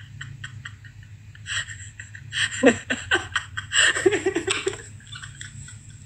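Two men laughing in breathy, broken bursts of giggling, loudest around two and a half and four seconds in.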